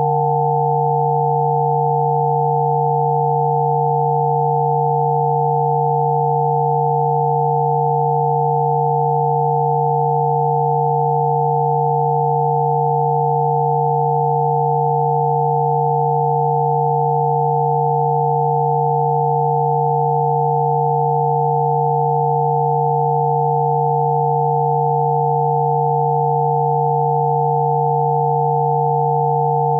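Rife frequency tones: several pure electronic sine tones sounding together and held steady without change, a low hum beneath a few higher, clearer tones.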